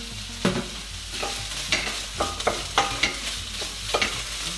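Chopped onion, celery, carrot and garlic sizzling in a hot non-stick wok while a wooden spoon stirs and scrapes through them, about two strokes a second from about half a second in.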